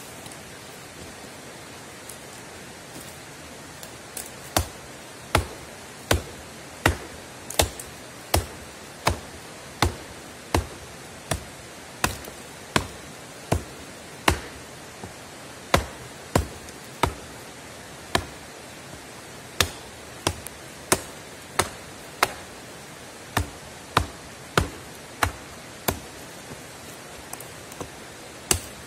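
Survival axe with a 600 g carbon-steel head chopping into a dead log: sharp, evenly paced strikes, about one every three-quarters of a second, starting about four seconds in, over a steady hiss.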